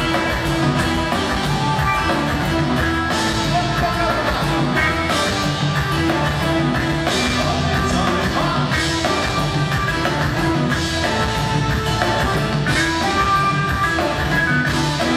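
Live band playing an Ethiopian pop song on drum kit, electric bass, electric guitar and keyboards, with a male lead singer.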